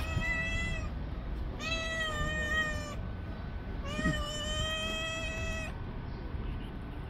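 Orange tabby cat meowing: three long, drawn-out meows with short gaps between them, each holding a steady pitch.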